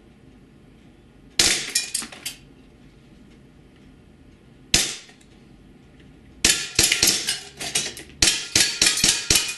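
WE G18C gas blowback airsoft pistol firing aluminum BBs. A quick string of shots comes about a second and a half in, a single shot near five seconds, then rapid full-auto bursts from about six and a half seconds to the end.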